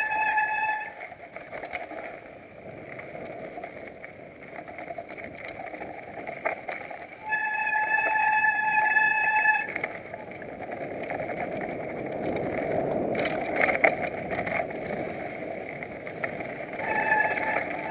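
Mountain-bike disc brakes squealing in a steady high tone, three times: at the start, for about two seconds starting some seven seconds in, and again near the end. In between, the tyres rumble over the dirt trail and the bike rattles and knocks over bumps. The rider calls the squeaking bike a piece of junk.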